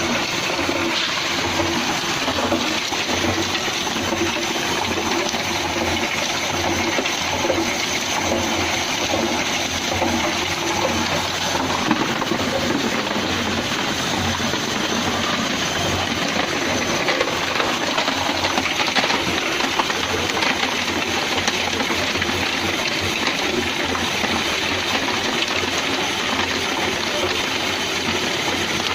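Tube ice machine running, with a steady rush of flowing water.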